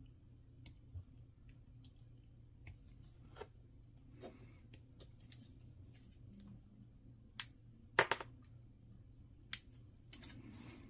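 Sharp, scattered plastic clicks and snips from a Gunpla model kit's parts being cut from the runner and fitted together, the loudest snap about eight seconds in.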